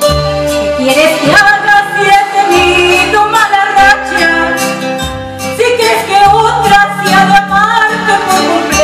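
A woman singing into a microphone over live electronic keyboard accompaniment, with a steady bass line under the melody.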